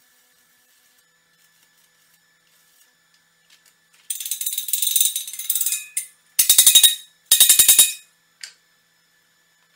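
Hand tool scraping and brushing the slag off a fresh weld on a steel box tube: a stretch of scraping about four seconds in, then two short bursts of rapid scrubbing strokes and a light tap near the end.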